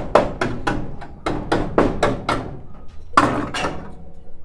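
Hammer blows on the rusted steel bed side of a Mitsubishi L300 pickup, a quick run of sharp metal knocks at about four a second, then a short pause and two more blows near the end.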